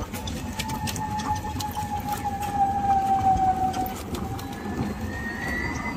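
A vehicle running, with a long steady whine that drifts slowly down in pitch and a fainter, higher whine rising near the end, over low rumbling road noise.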